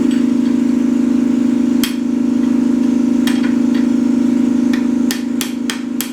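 Hammer blows on steel, driving a stuck spacer and bearing inner race off a mower-deck part: a few single strikes, then a quick run of about three blows a second near the end. Under them runs a loud, steady low machine hum.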